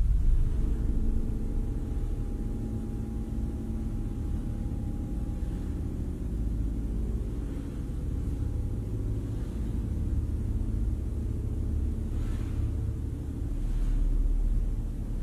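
Low, steady rumbling drone with a faint hum of held tones above it. It fades over the first few seconds and swells again near the end.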